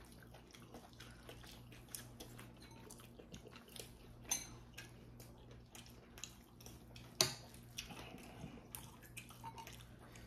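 Eating from a ceramic bowl: a metal spoon and chopsticks clink and scrape against the bowl in many small clicks, two louder knocks about four and seven seconds in, with soft mouth sounds, over a low steady hum.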